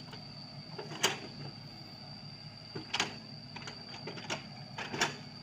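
Sany SY55C mini excavator's diesel engine running steadily, with a steady high whine over it, while it digs. Sharp knocks from the working machine come about four times.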